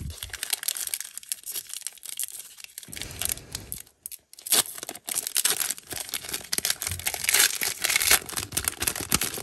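Plastic wrapper of a Donruss baseball card pack crinkling in the hands and being torn open at its top seam. The crackling gets louder and denser after a short pause about halfway through.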